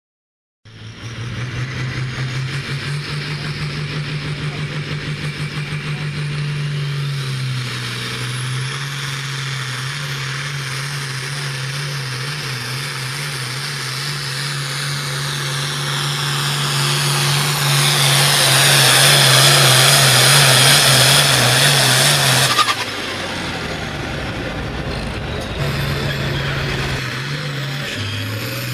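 Pulling tractors' turbocharged diesel engines running flat out under load as they drag the weight sled. The sound builds to its loudest about two-thirds through, with a high whine sliding down in pitch, then drops off suddenly.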